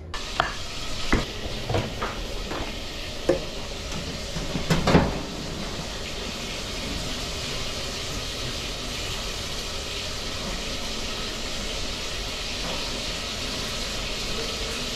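Tilapia sizzling on a grill, a steady hiss, with a few sharp knocks of utensils against the grill or pan in the first five seconds.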